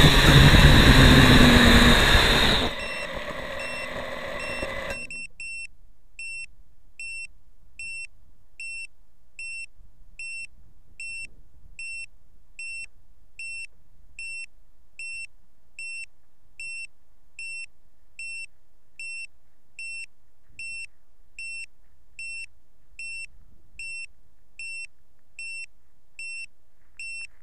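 Small FPV quadcopter's motors running loudly while it sits on the ground, easing down a little over two seconds in and cutting out about five seconds in. Then a steady series of short, high, identical beeps, a little over one a second, from the disarmed quad's beeper.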